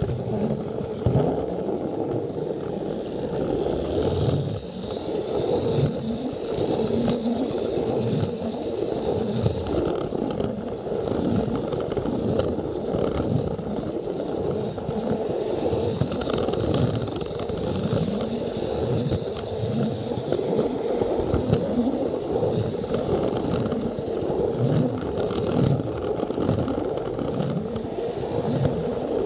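Battery-powered Plarail toy train running along plastic track, heard from a camera car riding on the train. The small motor and gears whir steadily, and the wheels keep up an irregular clatter and scrape over the track joints.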